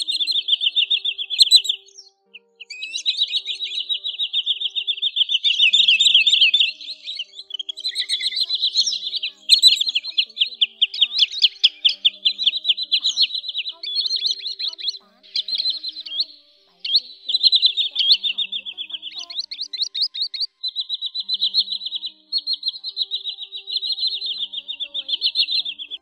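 Sandpiper calls: long, fast trills of sharp repeated notes, nearly unbroken except for brief pauses, with faint background music underneath.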